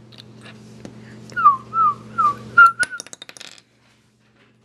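Whistling: five short notes, most falling in pitch, one after another from about one and a half to three seconds in, with a few faint clicks around them.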